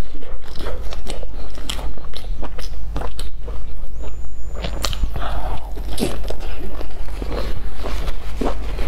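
Close-miked chewing and biting into a flatbread sandwich stuffed with sausages: many short, irregular clicks of the bread and filling being bitten and chewed, over a steady low hum.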